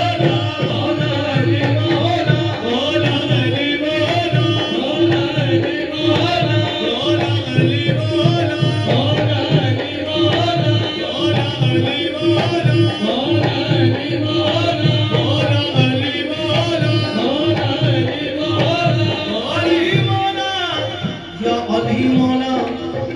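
Qawwali music: tabla drumming in a fast, steady rhythm over a held harmonium tone, with singing.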